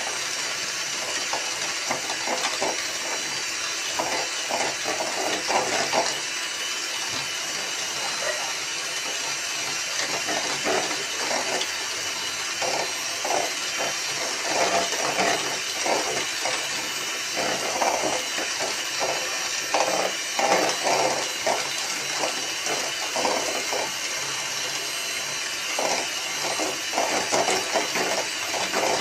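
Electric hand mixer running steadily, its twin beaters whisking eggs and sugar in a metal bowl, with an irregular rattle throughout. This is the beating stage that goes on until the mixture turns pale.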